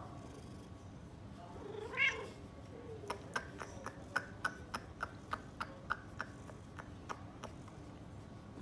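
A cat gives one short meow about two seconds in while being massaged, followed by a string of short sharp clicks, two or three a second.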